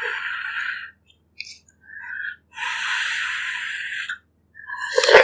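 Two long, airy slurps of hot herbal pork-rib broth, with small mouth sounds between them; a sharper, louder mouth sound starts right at the end.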